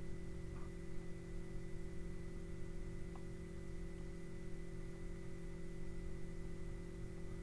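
Steady electrical hum made of several constant tones over a faint hiss: the background noise of the recording setup.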